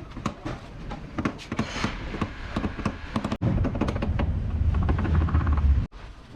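Irregular hammer taps on a car's sheet-metal fender as a dent is worked out by hand. About three and a half seconds in, they give way to a steady, low mechanical rumble that cuts off suddenly near the end.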